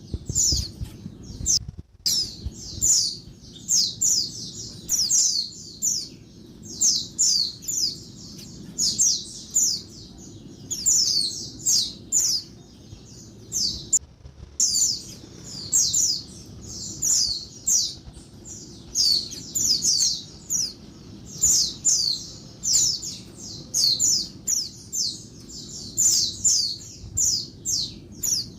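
Female white-eye (pleci) calling noisily: quick runs of short, high, falling chirps, several a second, in bursts separated by brief pauses, over a low steady hum.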